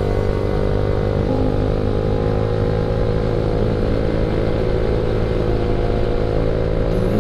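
Yamaha MX King 150's single-cylinder four-stroke engine running steadily while cruising, under a steady rush of road noise.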